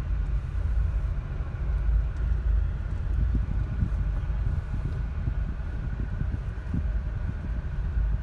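Steady low rumble of a car driving slowly on a gravel road, heard from inside the cabin: engine and tyre noise.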